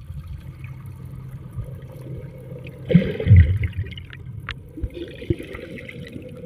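Seawater sloshing and splashing against the boat while the fishing net is hauled in, loudest in a burst about three seconds in, over a steady low hum.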